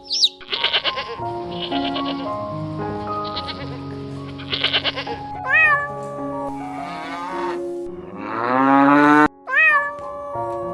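Sheep bleating repeatedly in wavering calls for the first half, over background music; short descending calls and a rising call follow near the end.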